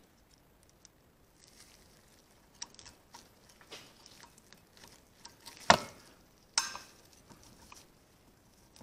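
Snap-ring pliers working a steel C-clip onto a driveshaft's splined end: light scattered clicks and handling noise, then two sharper metallic clicks about a second apart a little past the middle, as the clip snaps into its groove.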